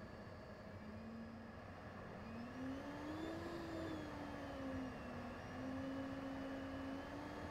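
Jet engine running, heard inside the cockpit of a jet trainer in flight. Its whine rises about two seconds in, eases back and then holds steady over a rushing noise.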